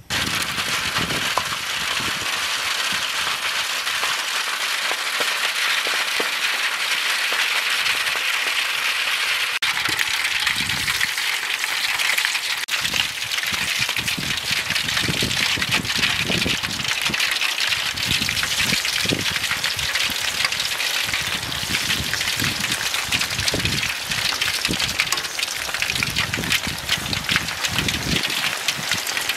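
Cut potato fries deep-frying in hot oil in an aluminium foil tray: a loud, steady sizzle and bubbling that starts abruptly, with some irregular soft knocks in the second half.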